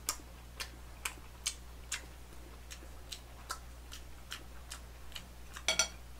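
Close-miked chewing of a fried fresh-oyster pancake: short wet mouth clicks about twice a second, with a brighter, ringing clink of dishware near the end.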